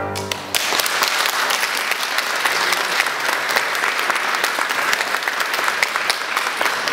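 The last violin-and-piano chord dies away, and about half a second in an audience breaks into applause: steady clapping that carries on.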